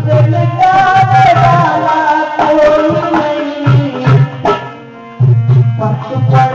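Bhajan music between sung lines: deep hand-drum strokes and sharp drum hits under a held, gently bending melody. The music drops briefly about five seconds in, then the drum strokes come back in.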